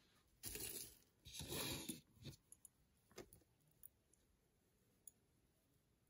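Two short rustles of jewelry and packaging being handled, followed by a few faint scattered clicks of pieces being picked up and set down.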